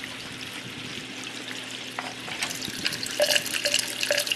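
Water trickling and bubbling as more water is added to a custom PC water-cooling loop, over the steady low hum of the loop's running pump. The crackle of bubbles grows busier about two seconds in, with air still working its way out of the loop.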